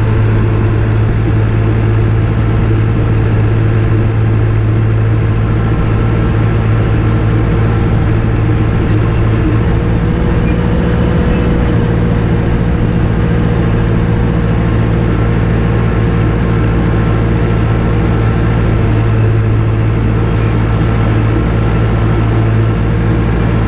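Massey Ferguson 383 tractor's diesel engine running steadily at working speed while pulling a hay rake across the field.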